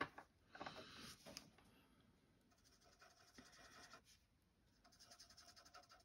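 Faint scratching of a felt-tip colour marker stroked over card stock, in three short spells of quick strokes.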